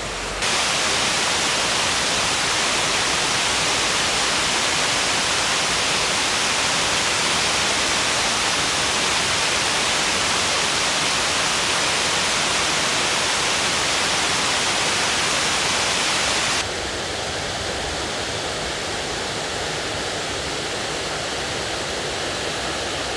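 Water cascading down the stepped stone spillway of a reservoir dam: a steady rushing hiss. About two-thirds of the way through it drops to a quieter, duller rush.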